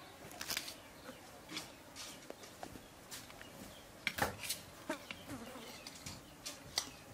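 Eating sounds: a dozen or so short, irregular clicks and smacks of chewing and of food handled on a plate, the loudest about four seconds in.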